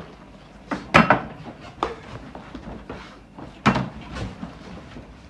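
Plastic water bottle flipped and knocking down hard on a tabletop about a second in, then clattering as it tips over; another sharp knock on the table near the end.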